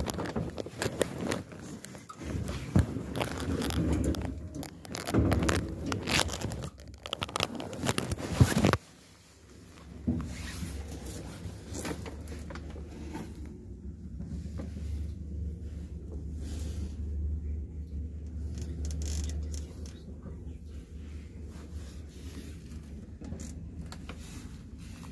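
Loud scraping and rustling of handling noise, the phone's microphone rubbing against fabric, for the first several seconds; it stops suddenly. After that comes a steady low hum of a Shcherbinka-built passenger lift car running between floors.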